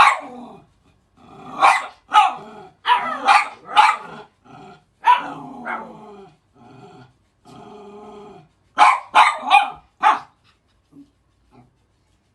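Dogs barking and growling: sharp barks, several in quick runs, between lower, steadier growls, falling nearly quiet near the end.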